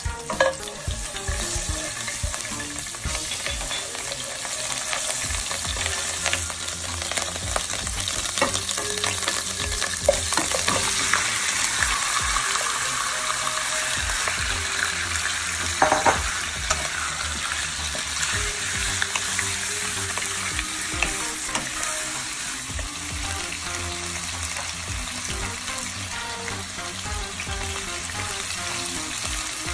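Oil sizzling in a nonstick frying pan as minced garlic and ginger, then chicken wings, fry, with a utensil stirring and knocking against the pan. One louder knock comes about halfway through.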